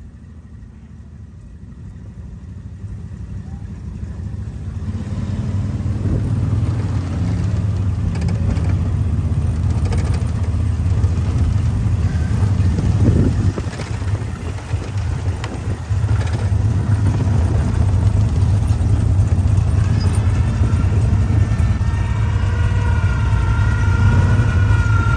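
Engine of a lifted monster truck on tractor tyres running with a steady low rumble, getting louder over the first several seconds and then holding steady.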